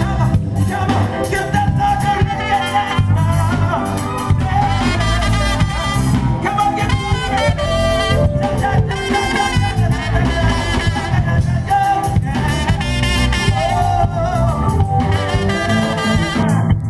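Live band playing a continuous, upbeat number on drum kit, bass guitar, lead guitar and keyboards, with a bright brass-like melody line over a steady beat.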